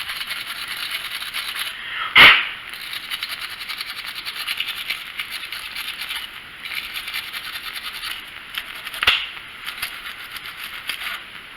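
Wire brush scrubbing rust from the intake bore of a small-engine carburetor: a steady, rapid, fine scratching of bristles on metal. Two sharp knocks come through, about 2 seconds in and about 9 seconds in.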